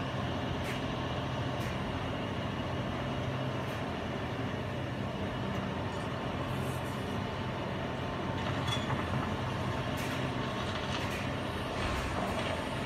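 Heavy diesel engine running steadily at an even low pitch, with a few faint light clicks and knocks.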